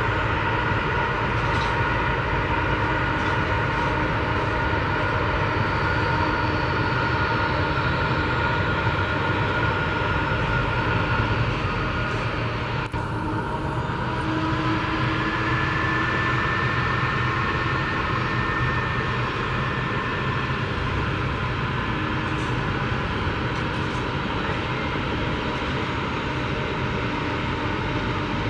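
Boeing 747-400F cargo jet's four turbofan engines on its landing run: a steady, loud jet rumble with high whining tones running over it.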